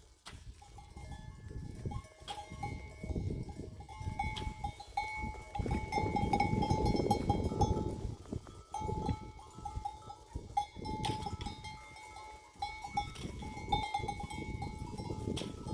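A metal livestock bell clanking over and over as the animal wearing it moves, over a rough low noise that is loudest about halfway through.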